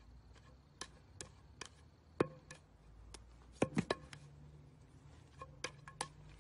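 Light, sharp taps and knocks at irregular intervals, about fifteen in all, with a quick cluster of louder ones in the middle, over a faint low hum.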